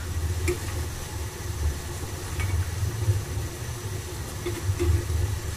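Fish broth boiling briskly in a steel pot over a gas burner: a steady low rumble, with a couple of faint clicks of a metal spoon against the pot as the foam is skimmed off.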